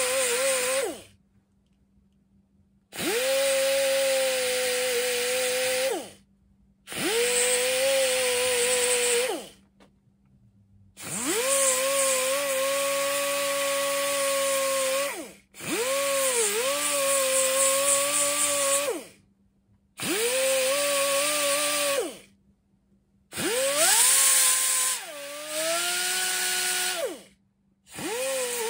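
Quarter-inch Chicago Pneumatic air die grinder with a small sanding disc, run in repeated bursts of a few seconds with short pauses between. It gives a steady high whine over a hiss, and the pitch dips and recovers now and then.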